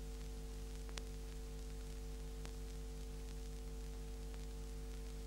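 Background noise of an old 1930s film soundtrack: a steady hum under even hiss, with a few faint clicks, the clearest one about a second in.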